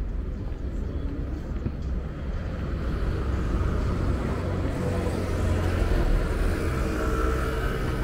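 City street traffic: a low rumble of passing vehicles that swells from about three seconds in, is loudest around five to six seconds, and eases slightly near the end.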